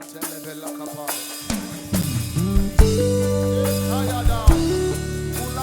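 Live worship band playing a slow instrumental intro: sustained keyboard notes, then bass and drum kit come in about a second and a half in, with drum and cymbal hits marking the beat.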